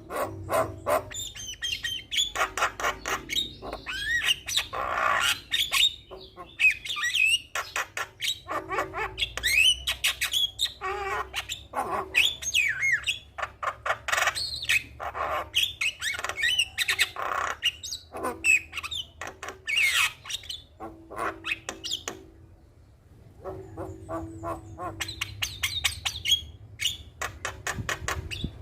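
Javan myna singing hard: a dense, fast run of chattering clicks, harsh squawks and rising and falling whistles, with a short break about three-quarters of the way through.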